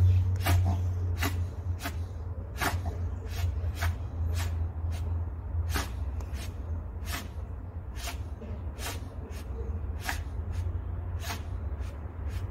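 Yorkshire terrier sniffing and snorting hard through its nose, short sharp snorts coming irregularly about one and a half times a second, over a steady low hum.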